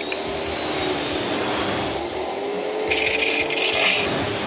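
Pressure washer running, its jet of water hissing against the metal and mesh screen of a combine harvester's threshing section over a steady machine hum. About three seconds in, the hiss turns louder and sharper for about a second.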